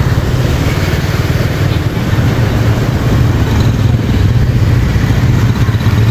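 Motorcycle engine running steadily while riding, with an even rapid firing pulse under a broad rushing noise.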